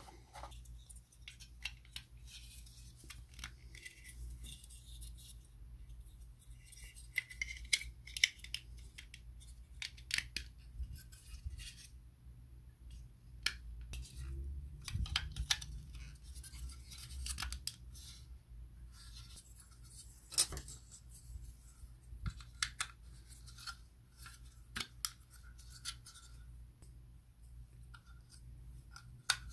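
Hard plastic parts of the Bandai Cup Noodle model kit's noodle block being handled and fitted together: scattered faint clicks and taps, with a few sharper snaps.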